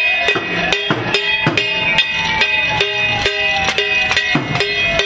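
Cooking pots being banged with spoons in protest noise-making: quick, uneven metallic strikes, each ringing briefly.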